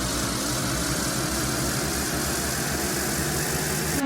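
A motor vehicle's engine running steadily, a constant drone with a fast low pulsing and a hiss over it.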